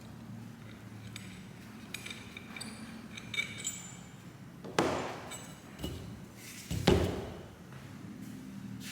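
Metal engine parts and hand tools being handled on a workbench: light ringing clinks, then two sharper knocks about five and seven seconds in.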